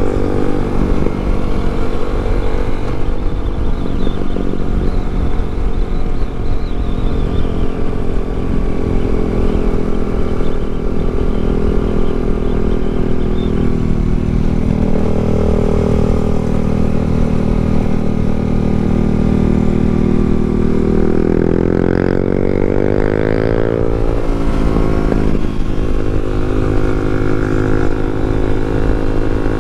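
Yamaha MT-07's parallel-twin engine running under way, with constant low wind rumble. About two-thirds through, the revs climb for a few seconds, then drop and pick up again near the end.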